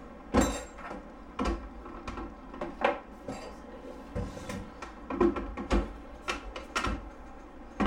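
About eight separate knocks and clinks of kitchen containers being handled on a countertop: a glass blender jar loaded with tomatillos, its lid and a jar of chicken bouillon being picked up and set down. The blender is not running.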